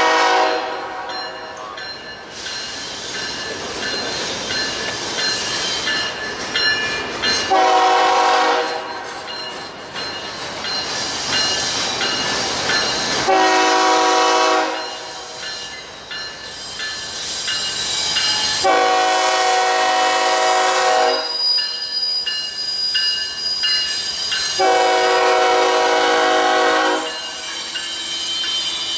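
Diesel freight locomotive's multi-note air horn sounding repeated blasts as a BNSF train passes close by: the end of one blast at the start, then two shorter and two longer blasts about five to six seconds apart. Between the blasts the locomotives and freight cars rumble past.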